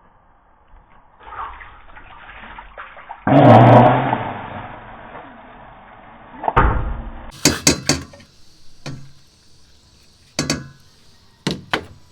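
Liquid slime ingredients pouring and splashing into a container in one loud rush, then a knock and several sharp taps and clicks against the container.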